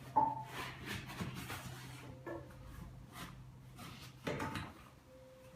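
Scattered knocks, scrapes and rustles of tools and materials being handled during interior renovation work, over a faint steady low hum.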